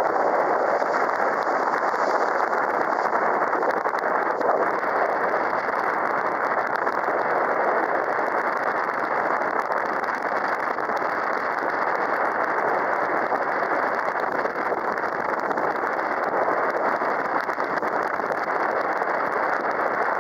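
Small sightseeing boat under way on a river: its motor, the rushing water and the wind blend into one steady, even noise.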